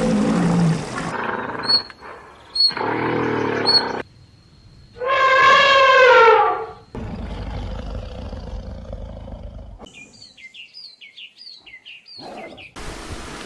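A string of short animal-sound clips cut one after another: a loud, drawn-out animal call lasting about a second, roughly midway, slightly falling in pitch, and near the end a quick series of high bird chirps.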